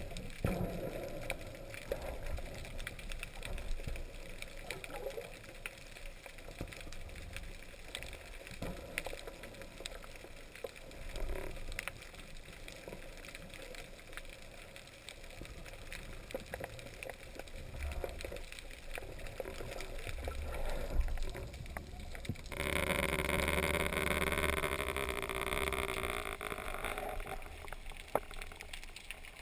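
Underwater sound picked up through a GoPro's waterproof housing while diving: a muffled low rumble of moving water with scattered faint clicks. About three-quarters of the way through, a louder steady hum with several tones starts abruptly and lasts about five seconds.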